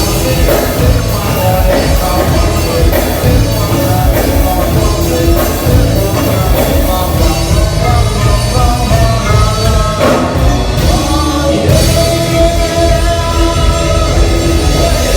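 A band playing loud rock-style music with a drum kit keeping a steady beat under sustained melody lines; the music dips briefly about ten seconds in, then carries on.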